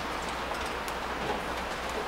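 Steady ambient background noise with a low hum underneath and scattered faint clicks and ticks.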